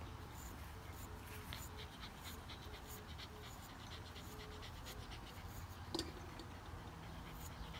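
Australian Terrier panting faintly, a run of quick short breaths, with one brief sharp click about six seconds in.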